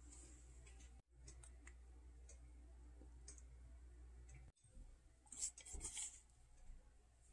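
Near silence: faint room hum with a few light clicks about five to six seconds in.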